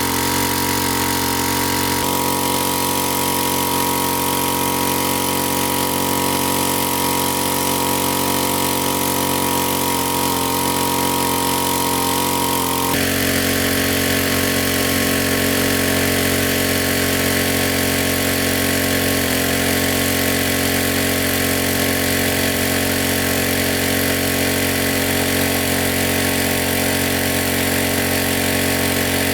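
Small engine running steadily, its tone shifting abruptly about two seconds and again about thirteen seconds in.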